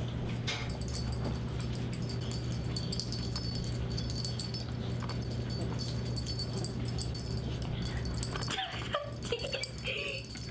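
Small dog whining and yipping in play, with a few short, high calls near the end, over a steady low hum.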